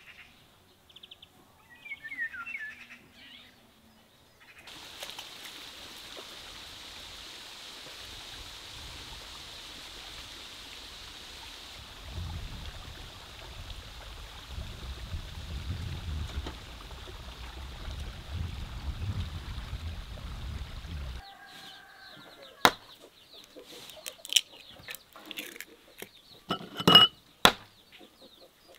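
A steady outdoor hiss with a low rumble underneath. About two-thirds of the way in it gives way to a string of sharp clinks and taps as a glass bowl of eggs and a metal mixing bowl are handled on a table.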